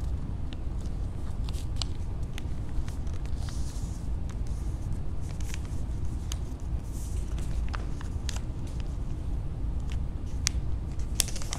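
A sheet of paper being folded and creased by hand on a table: scattered light taps and soft rustles over a steady low hum.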